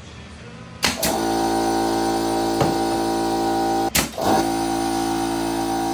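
Air compressor kicking on with a sudden start about a second in, then running with a loud, steady drone. It breaks off briefly near the middle and starts up again.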